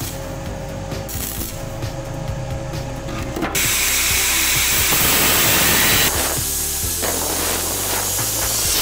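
Background music at first. About three and a half seconds in, an angle grinder with a thin cut-off disc cuts in loudly: a steady, dense grinding noise of the disc working on steel plate, which shifts in tone about halfway through.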